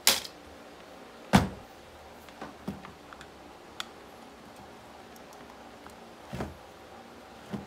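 Handling noises on a wooden workbench: two loud knocks, right at the start and about a second and a half in, as a multimeter and cables are set down, then a few lighter clicks and a softer knock as test leads and cables are worked around a jump starter.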